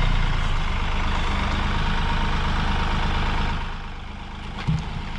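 Compact tractor engine running steadily, fading somewhat about three and a half seconds in, with a couple of faint knocks near the end.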